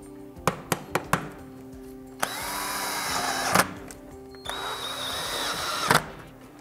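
Four quick taps of a hammer on a block of wood held against a metal tackboard mounting clip. Then a cordless drill runs twice, about a second and a half each, driving fasteners through the top clip into the wall, with a steady whine.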